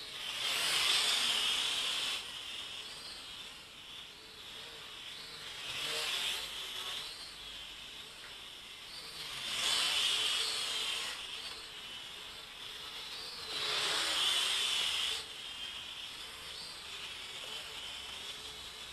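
JJRC H31 quadcopter's motors and propellers whirring. They swell loud four times as the drone passes close to the camera and fade between passes, over a steady background hiss.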